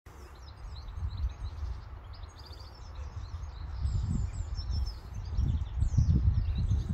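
Birds singing and chirping, with a low, gusting rumble of wind on the microphone that grows stronger from about four seconds in.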